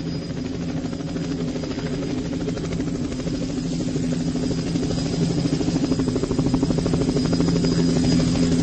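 A steady low droning hum with a fast flutter in it, slowly growing louder.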